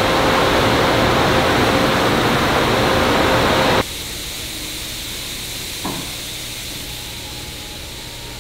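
2022 Subaru BRZ's 2.4-litre flat-four running on a cold start, heard through its full-titanium cat-back exhaust as a loud, steady rush with a steady hum. It cuts off abruptly about four seconds in, leaving a much quieter steady background with one short sound near six seconds.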